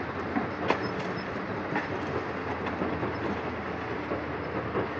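Diesel engine of a Tata Hitachi excavator running steadily at a mine face, with a few short sharp clanks about a second apart.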